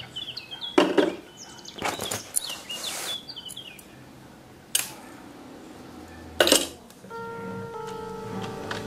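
Small hard objects knocking and clinking in a drawer as a hand picks through them: a handful of separate knocks, the loudest about six and a half seconds in. Birds chirp through the first few seconds, and music with steady held tones comes in near the end.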